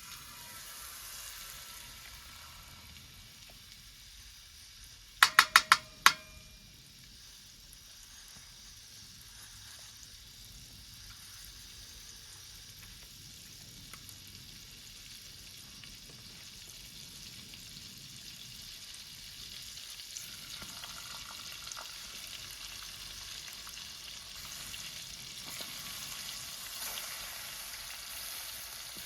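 Food frying and sizzling steadily in a pan, the sizzle slowly growing louder. About five seconds in, four quick metallic taps ring out, like a utensil knocked against the pan's rim.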